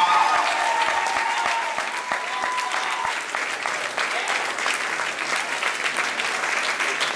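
Audience applauding steadily, with a held high note from the crowd fading out about three seconds in.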